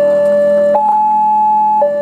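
Railway level-crossing warning alarm sounding a steady two-tone electronic tone. It alternates between a lower and a higher pitch, switching up about two-thirds of a second in and back down near the end. It is the signal that the barriers are down for an approaching train.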